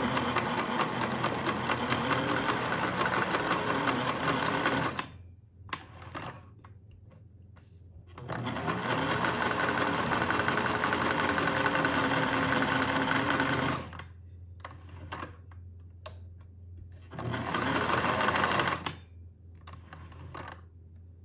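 1950s Singer 403A sewing machine stitching zigzag through two layers of denim. It runs in three spells: a long run, a pause, a second long run, and a short final run near the end, with quieter gaps between.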